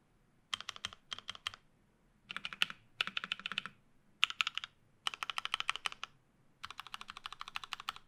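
Typing on an OTD 356 mini mechanical keyboard with lubed Cherry Vintage Black linear switches, an aluminium plate, no sound dampening and DCS-profile keycaps. Rapid keystroke clacks come in short runs of about half a second to a second and a half, with brief pauses between them.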